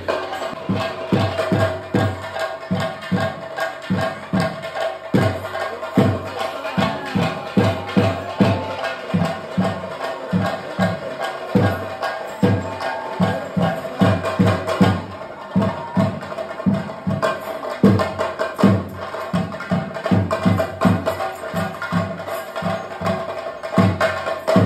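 Theyyam accompaniment music: chenda drums beating a fast, even rhythm with sharp percussion strikes, over a single held high tone that does not change throughout.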